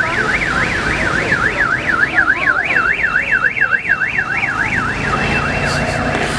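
An electronic siren wailing rapidly up and down, about three sweeps a second, with a steady higher tone joining partway through. The wail fades out near the end. Low engine noise of passing cars runs underneath.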